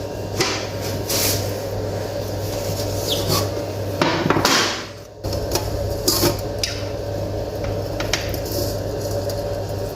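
Metal baking trays knocking and scraping as a tray of baked kunafa is turned out onto another tray: scattered knocks and short rubbing sounds over a steady low hum.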